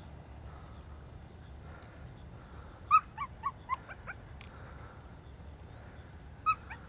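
A dog whimpering in short, high yips: a quick run of about five about three seconds in, then two or three more near the end.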